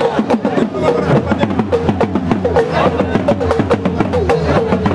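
Drums and other hand percussion playing a fast, dense rhythm, with a wavering melodic line above the strokes.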